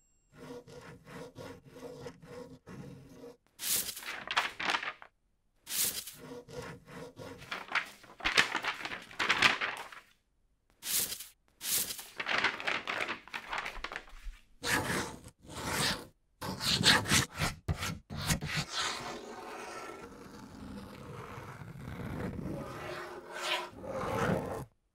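Pen scratching and scribbling across paper in a run of quick, uneven strokes, broken by short pauses. Near the end it turns into a longer, steadier rub, which stops suddenly.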